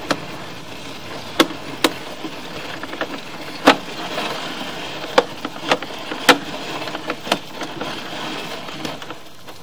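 Sewer inspection camera's push rod being fed down the line: irregular sharp clicks and knocks, about a dozen, over a steady hiss.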